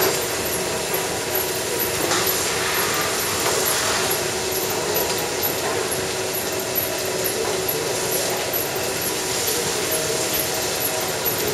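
Milking machines running in a dairy parlour: a steady mechanical hum with faint, regular ticking, about two a second, typical of the pulsators working the teat cups.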